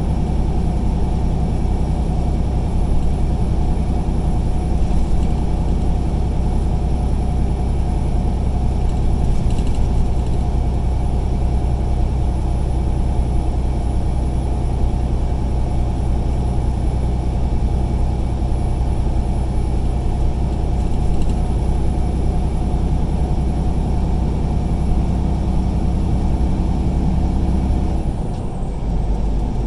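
Truck engine and road noise heard from inside the cab while driving on the highway: a steady low drone with a few steady engine tones. Near the end the sound dips briefly and some of the engine tones drop away.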